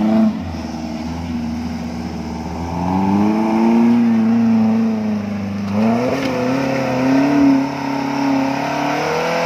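Small off-road 4x4's engine revving under load as it drives up a deep, muddy, rutted track. The revs climb about three seconds in, then rise and fall with the throttle.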